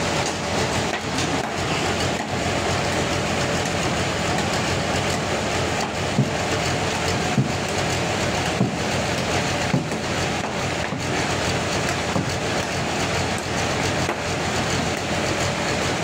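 Sawmill running while sawing a trembesi (rain tree) log, a loud steady mechanical noise. Four sharp knocks about a second apart come in the middle.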